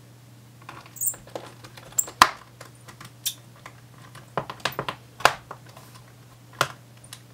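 Small Phillips screwdriver clicking and tapping on a screw in a laptop's base panel: a scatter of irregular light clicks, the sharpest about two seconds in, over a faint low hum.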